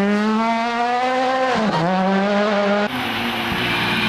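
Rally car engine at full throttle, its pitch climbing, dipping briefly for a gear change less than two seconds in and climbing again. Near three seconds it cuts abruptly to another rally car's engine holding a steadier high pitch.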